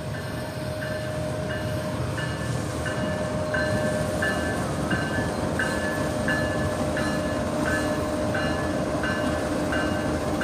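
Pakistan Railways GEU-40 diesel-electric locomotive rumbling as it draws a passenger train slowly into the station, growing louder as it comes alongside. A short high beep repeats about every 0.7 seconds throughout.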